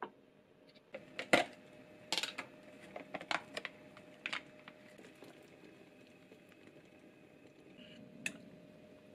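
A string of sharp clicks and taps as a plastic miso tub is handled and its foil lid peeled back, with a spoon knocking against it; the loudest comes about a second in and a single click falls near the end.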